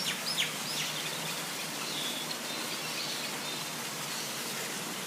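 Birds calling over a steady hiss: a few quick falling chirps in the first second, then fainter short calls.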